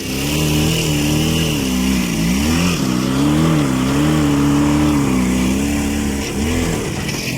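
IZh Jupiter 5 motorcycle's two-stroke twin engine running and being revved, its pitch rising and dipping several times as the throttle is opened and closed.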